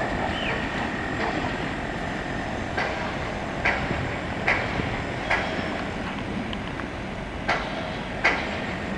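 A departing passenger train rolling away, its wheels clicking over the rail joints about once a second over a steady rumble.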